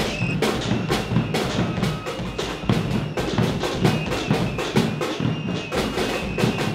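Several drums, large bass drums among them, beaten hard in a fast, uneven clatter as protest noise, with a thin high held tone coming and going above the drumming.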